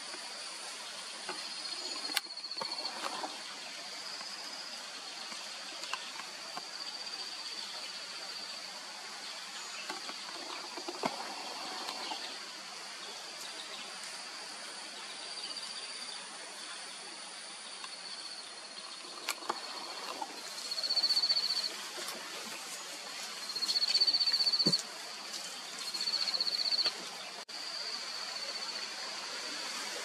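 Forest insects trilling in a steady high-pitched chorus, with three louder buzzing bursts of about a second each in the second half.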